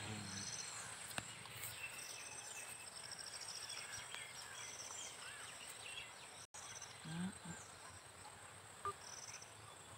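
Faint outdoor insect sounds: short, finely pulsed chirping trills repeat every second or two over a steady high-pitched insect hum.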